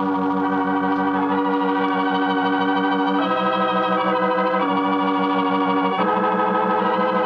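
Organ music: held chords with a pulsing tremolo, moving to a new chord every second or two.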